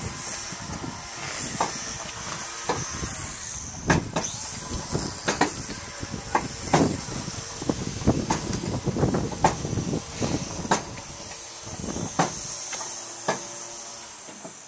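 A plastic toddler swing on ropes being pushed back and forth, with short clicks and knocks every second or so, over a steady high hiss.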